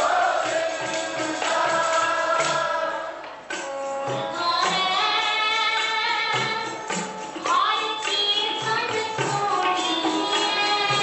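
Sikh kirtan: a woman sings a devotional hymn to harmonium accompaniment, with low hand-drum strokes keeping a beat beneath. Her voice drops out briefly about three and a half seconds in, then picks up again.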